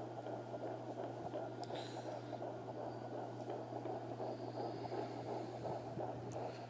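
Home fetal Doppler's speaker playing a 13-week fetus's heartbeat: a fast, rhythmic whooshing pulse of about 145 beats a minute, over a steady low hum.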